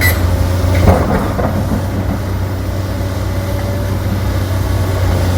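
Excavator diesel engine running steadily, with a sharp knock at the start and a few heavier knocks about a second in as the steel bucket is set down.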